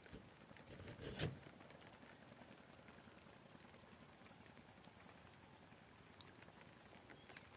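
Near silence: faint outdoor background with a brief thump about a second in, and a thin steady high whine that stops near the end.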